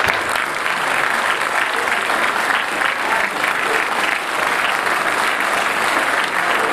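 Audience applauding steadily, a dense clapping that neither builds nor fades.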